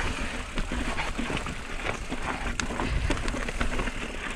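Mountain bike moving over a loose, rocky trail: tyres crunching on gravel and stones, with many scattered clicks and rattles from the bike.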